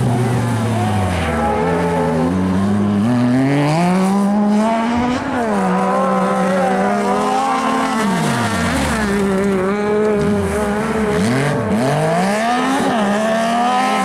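Cross-car buggy engines running at high revs on an ice track: the pitch climbs in steps through the gears, then in the second half falls and rises sharply several times as the throttle is lifted and reapplied through the corners.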